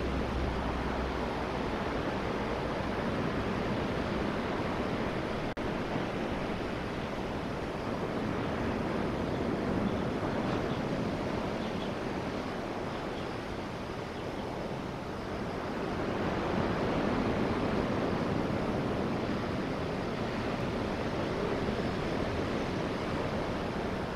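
Sea surf breaking and washing on a pebble beach: a steady rush that swells and ebbs, louder about ten and seventeen seconds in. A low hum fades out in the first second or two.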